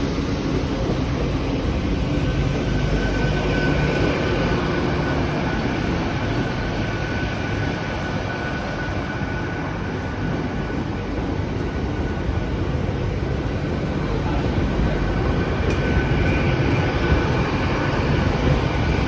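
LNER King's Cross–Inverness express train's diesel engines running in a steady low rumble, with a thin high whine held throughout.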